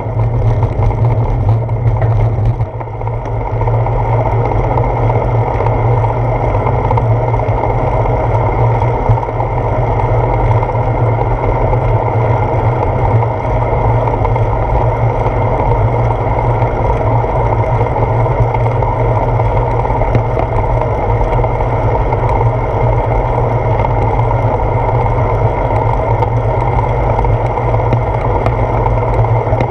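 Steady wind buffeting and road rumble picked up by a GoPro mounted on a bicycle's handlebars while riding. It dips briefly about two and a half seconds in.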